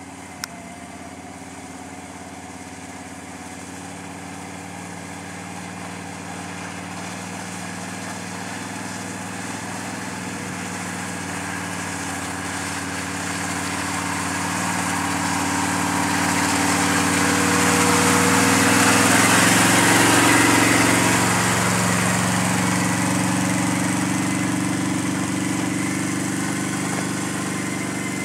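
Can-Am Outlander 650 Max ATV's V-twin engine running at a steady, low pace as the quad is ridden slowly. It gets louder as the quad comes close, peaking about two-thirds of the way through, then fades as it drives off.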